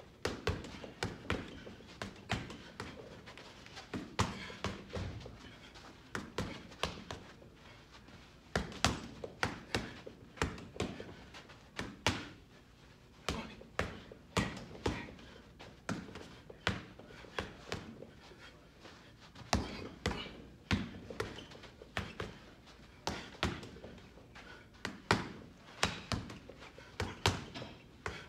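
Punches from Rival RB5 bag mitts, old-school style gloves with little padding, landing on a hanging heavy bag: sharp thuds in quick combinations of several hits, with short pauses between them.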